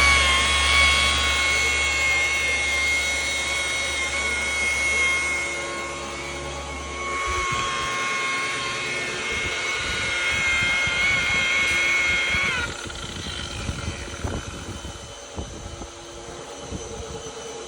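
Handheld electric polisher running at a steady high whine while buffing glaze into a car headlight lens. The motor winds down and stops about twelve and a half seconds in, leaving faint handling noises.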